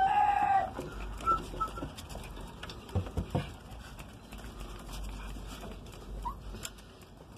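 A rooster crowing, the crow ending within the first second. After it come a few faint short squeaks and a couple of soft knocks about three seconds in.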